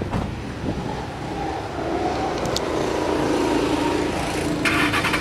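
Ford Mustang V8 with an aftermarket performance exhaust running, its note rising steadily in pitch and loudness. A short crackling burst comes near the end.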